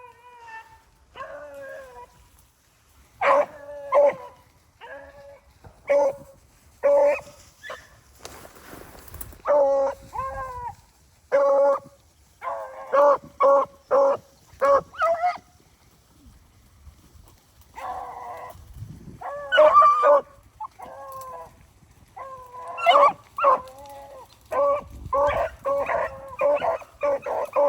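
A pack of rabbit-hunting hounds barking and baying: many short, pitched barks in quick runs, about two or three a second, with a pause partway through before the barking picks up again.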